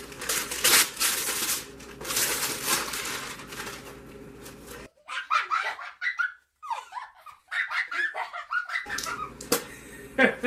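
Tissue paper and a gift bag rustling and crinkling as a present is unwrapped, then laughing from about five seconds in.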